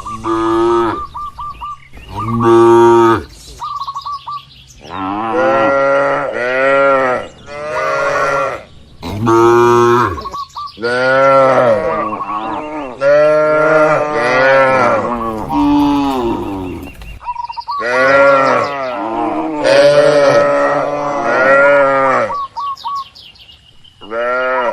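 Cattle mooing over and over, loud calls that rise and fall in pitch, some short and some drawn out. Brief high chirps sound in a few of the pauses.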